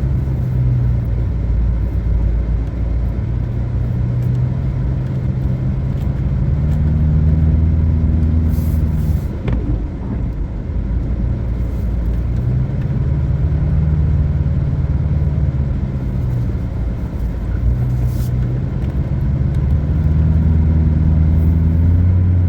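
Vehicle driving on the road, engine and road rumble; the engine note climbs and drops back a few times as it accelerates.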